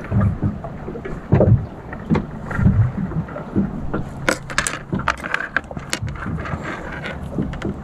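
Small metallic clicks and ticks of steel fishing hooks and leader being handled and laid on a fibreglass boat deck, bunched about four to six seconds in, over a steady low rumble with a few dull thumps in the first few seconds.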